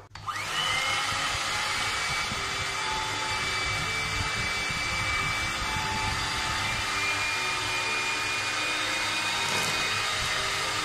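Electric mixer switching on and spinning up over about half a second, then running at a steady whine while it beats butter cake batter.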